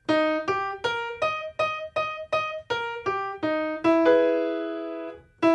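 Piano playing a vocal-exercise pattern: about ten quick single notes stepping up and back down a scale, then a held chord. Just before the end the pattern starts again a step higher, the next repetition of the warm-up.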